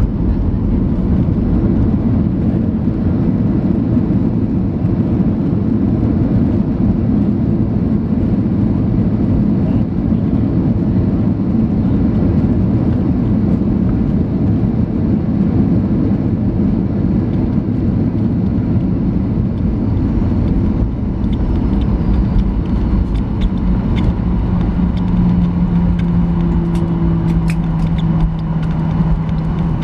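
Cabin noise of a Boeing 737-900ER rolling down the runway after landing: a loud, steady rumble of the wheels and CFM56 engines. A steady low hum comes in over the last few seconds.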